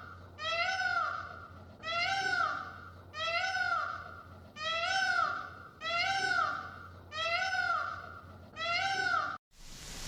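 A small animal's high mewing call, rising then falling in pitch, repeated seven times at even intervals of about a second and a half.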